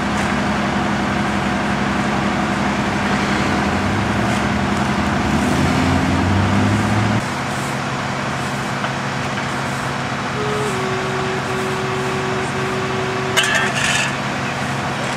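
Idling emergency-vehicle engines: a steady drone that drops abruptly to a quieter rumble about seven seconds in, with a brief clatter near the end.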